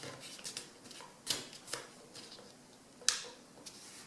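A sheet of A4 paper rustling and crinkling as it is folded and pressed by hand, with two sharper crackles, a little over a second in and about three seconds in.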